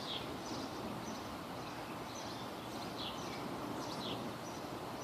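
A bird giving short, falling chirps, repeated every second or so over a steady outdoor hiss of wind and ambient noise.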